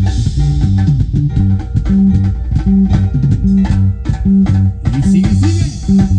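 Music with guitars and a bass line: plucked string notes over a repeating bass pattern in a steady rhythm.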